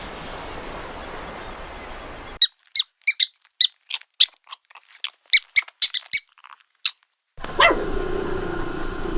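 A quick run of about fifteen short, high-pitched animal squeaks with dead silence between them, starting a couple of seconds in after a steady hiss. Near the end the sound cuts to a new clip with a held, lower animal call over background noise.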